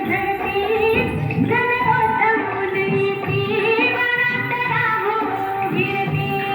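A song playing: a woman's voice singing a melody over instrumental backing with a steady beat.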